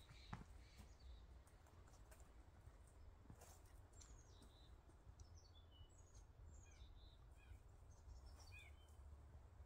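Faint, scattered chirps of small birds, short high calls repeating every second or so over a low, steady rumble of wind.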